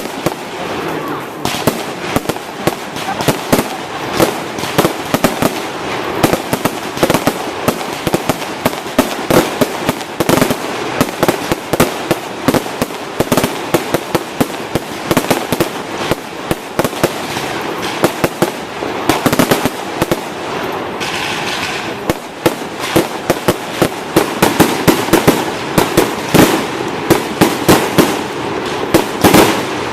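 Fireworks display: a dense, continuous volley of bangs and crackling bursts, many overlapping, with louder reports in quick succession near the end.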